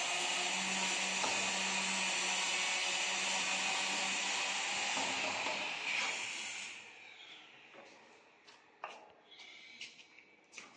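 A steady machine noise with a low hum fades out about two-thirds of the way through. It leaves a few sharp scrapes and knocks of a steel trowel working cement mortar on a brick stair step.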